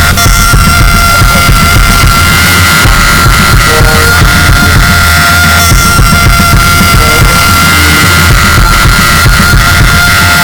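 Loud, dense extreme metal music: distorted guitar, bass and drums, with a steady high tone held over it.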